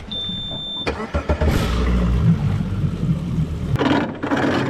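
A boat's outboard motor being started by key: a high steady warning beep sounds for under a second, then the engine cranks and catches about a second in and keeps running.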